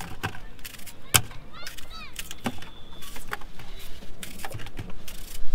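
Knife cutting an apple into pieces by hand, a series of sharp, irregular clicks as the blade cuts through the fruit and pieces drop into a small bowl.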